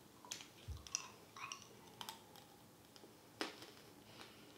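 Faint crunching of a Jordan almond being chewed: a scatter of small, irregular crisp cracks as its thin, crisp sugar shell breaks, with one louder crack about three and a half seconds in.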